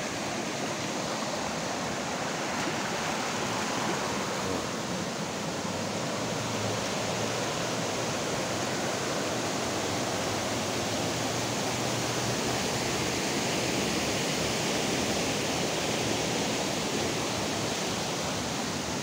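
A creek swollen after heavy rain, rushing steadily: an even wash of fast water over rocks.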